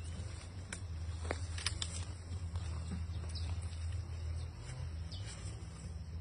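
Asian elephant pulling and stripping leafy branches with its trunk: twigs and leaves crackling and snapping, sharpest in the first two seconds, over a steady low hum.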